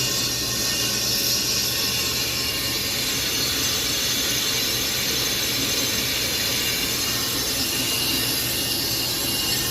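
A brake lathe turns and cuts a warped brake rotor. It makes a steady mechanical whir with a thin, high metallic squeal from the cutting tool on the iron rotor.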